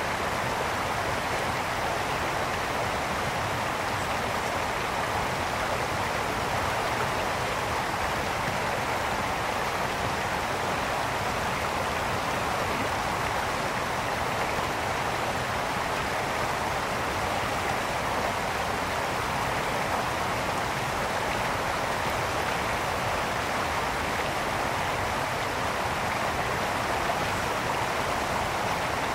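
Mountain brook flowing and splashing steadily over rocks, an even rushing water sound with no change in level.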